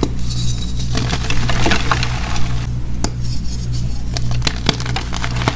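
Hands crushing and snapping blocks of dyed gym chalk: dry, dense crunching and crumbling, with a single sharp crack about three seconds in.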